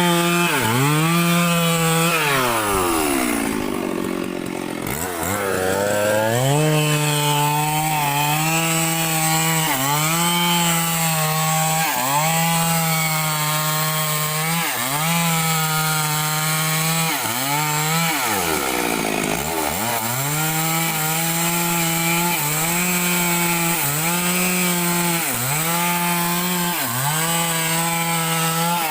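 Small petrol chainsaw cutting wood at high revs. Its pitch dips and recovers every second or two as the chain loads up in the cut. Twice the engine drops almost to idle and revs back up.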